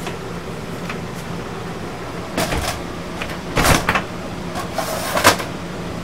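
Steady hum of a travel trailer's air conditioner running, with a few short knocks and rustles in the middle, the loudest of them about three and a half seconds in and again just after five seconds.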